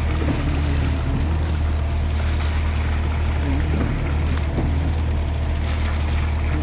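Steady low engine drone, with faint wavering tones above it.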